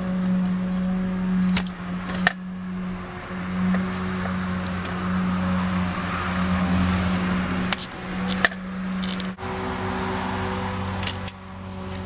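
About six sharp clicks, irregularly spaced, from the spring-loaded mechanism of a Simplex dial typewriter, two of them in quick succession near the end, over a steady low hum.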